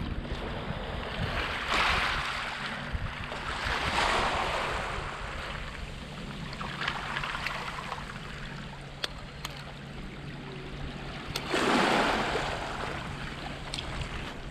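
Small waves washing onto a pebble beach, rising and falling in four surges, the loudest about twelve seconds in, with a few sharp clicks and a low wind rumble on the microphone.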